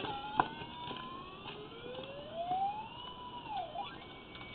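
Electronic tone from a drain-camera locator tracing the transmitter (sonde) in the camera head. The tone glides up slowly, dips about three and a half seconds in and rises again as the signal strength changes. There is a single sharp click about half a second in.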